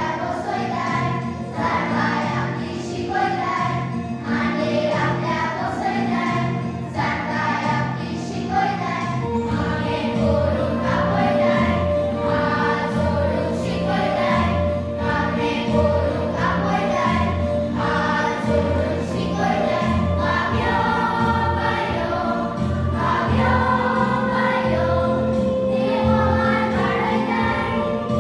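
Choir singing a religious song with instrumental accompaniment; a steady bass beat comes in about nine seconds in.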